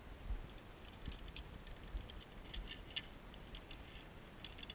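Light metallic clinks and jingles at irregular moments from zipline carabiners and harness hardware being handled.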